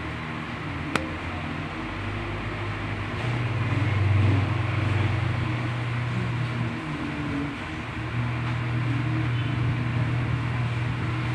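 A low mechanical hum over steady background noise, swelling louder twice, with one sharp click about a second in.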